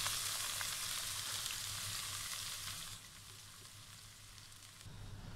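Chopped onions sizzling in hot ghee in a kadai, just added to the fat. The sizzle is strong, then drops suddenly to a faint hiss about three seconds in.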